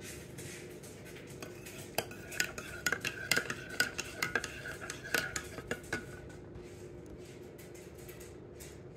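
A spoon stirring hot cocoa in a mug, clinking against the sides in a quick run of taps from about two seconds in until about six seconds in.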